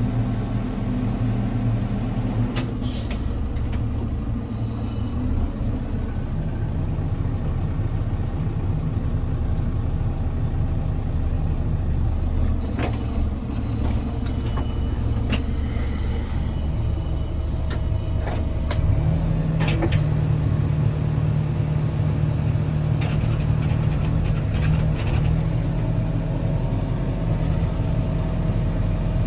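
JCB 4CX backhoe loader's four-cylinder diesel engine running steadily, heard from inside the cab, with a few sharp clicks. About two-thirds of the way in, the engine revs up and holds at a higher speed.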